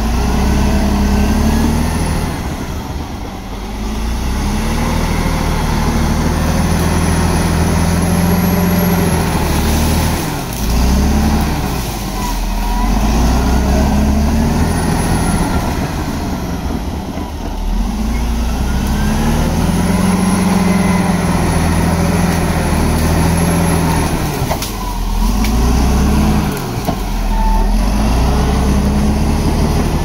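Bulldozer's diesel engine working under load, its pitch rising and falling again every few seconds.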